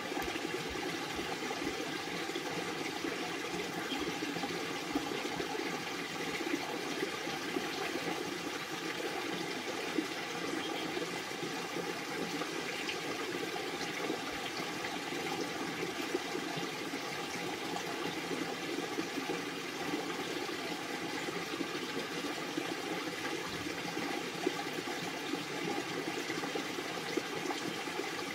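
Steady rushing noise like running water, unchanging throughout, with a few faint clicks scattered over it.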